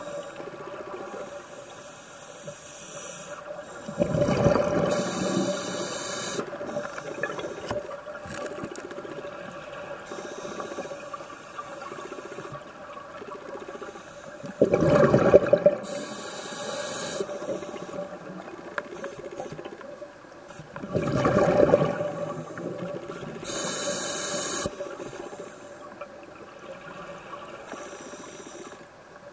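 Scuba regulator breathing underwater: about three slow breath cycles, each a burst of rumbling exhaled bubbles and a separate hiss of inhalation through the regulator.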